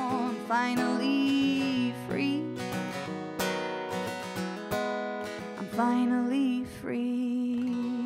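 Acoustic guitar strummed and picked through the closing bars of a song.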